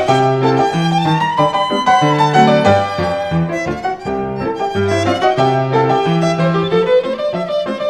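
Violin playing a melody with slides between notes over a steady, rhythmic accompaniment of low notes.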